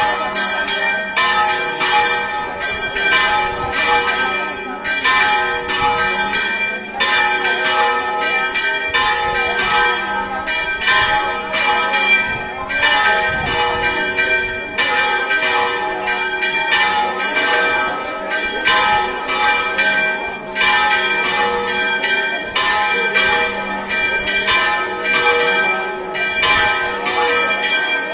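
Church bells pealing in a rapid, continuous run of strikes, the tones ringing on and overlapping; a festive peal for the procession's image leaving the church.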